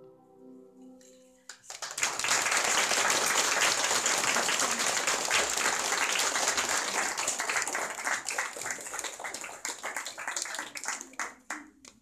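The last notes of a children's song fade out, then an audience applauds from about two seconds in: dense clapping at first, thinning to scattered claps near the end.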